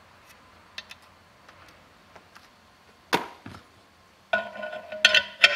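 Small clicks, a single sharp knock about three seconds in, then a quick run of ringing metal clanks and clinks near the end, as the steel crankshaft installer tool is handled and fitted against the scooter engine's crankcase.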